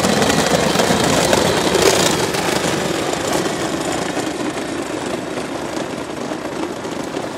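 12-volt Power Wheels Stinger XS ride-on buggy driving over asphalt: its hard plastic wheels and electric drive give a steady rough rolling noise that slowly fades as the buggy pulls away.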